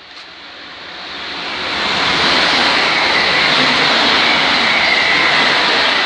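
A passenger train running through the station on the East Coast Main Line. Its rush of wheels on rail swells over the first two seconds, then holds steady and loud as it passes.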